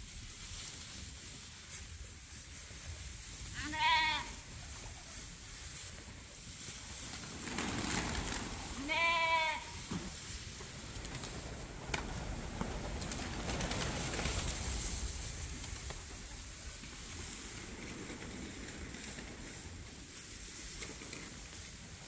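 A sheep bleats twice, a short wavering bleat about four seconds in and a longer one about nine seconds in. Straw rustles in between.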